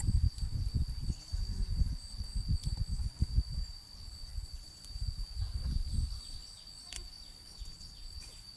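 A steady high insect trill, like crickets, runs throughout under irregular low rumbling that is strongest in the first half.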